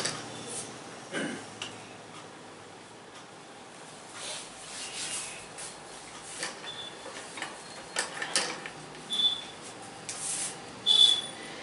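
Hands rubbing and scratching through hair and over the scalp in a head massage, in irregular swishes with a few sharp snaps, the loudest near the end.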